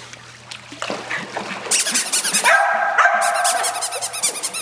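A dog barking in a fast, unbroken run of high barks and yips, starting a little under two seconds in.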